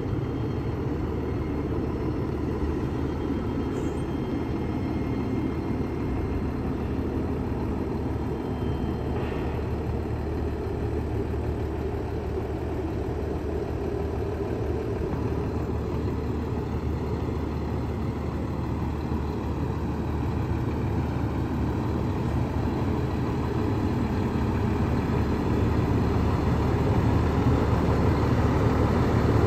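Diesel engine of a Sutphen custom fire pumper running as the truck moves slowly, a steady low rumble that grows louder over the last few seconds as the truck comes toward the microphone.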